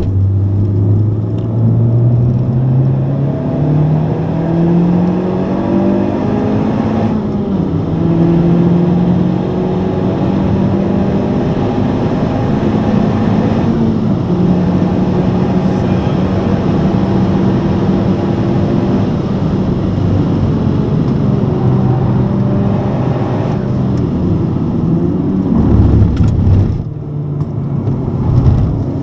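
Honda Civic Type R's turbocharged 2.0-litre four-cylinder engine heard from inside the cabin under hard acceleration on track. The pitch rises through the gears, with upshift breaks, then holds at high revs and drops as the car brakes and downshifts near the end.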